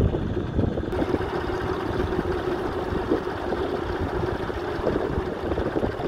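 Fordson Model N tractor's four-cylinder engine running steadily under load, pulling a plough through the soil.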